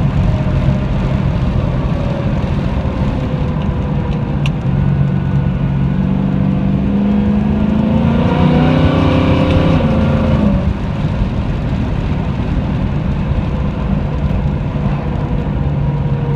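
1969 Plymouth Road Runner's V8 engine running under way. About halfway through it revs up with a rising pitch, then drops back suddenly, as at an upshift, and runs on steadily.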